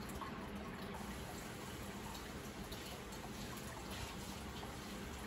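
Aquarium water bubbling and trickling steadily, with scattered small drips and a faint low hum underneath.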